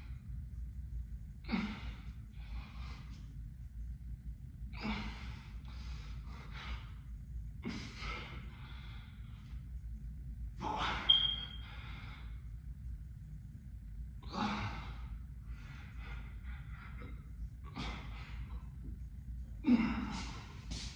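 A man's forceful exhaled breaths, one about every three seconds, each trailing into a few shorter puffs: exertion breathing with each rep of a barbell bent-over row set. A steady low hum runs underneath.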